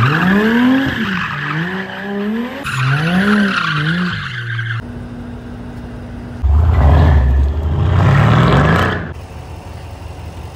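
Sports car engines revving up and down repeatedly, mixed with tyre squeal, in several abruptly cut clips. A loud, deep engine revs upward from about the middle and drops away near the end.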